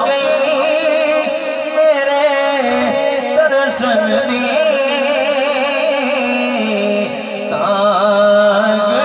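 Naat reciter singing long, wavering melismatic phrases on held vowels into an amplified microphone, with a steadier lower tone sustained beneath. The voice climbs to a higher phrase about three and a half seconds in and again near the end.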